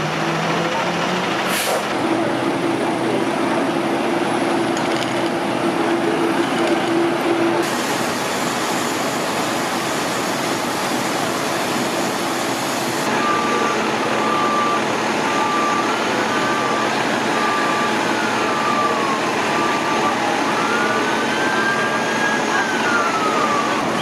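Fire trucks' engines running in a steady din, with a steady tone held for about five seconds from about two seconds in. From about halfway, a reversing truck's beeper sounds in even beeps while a siren rises and falls twice.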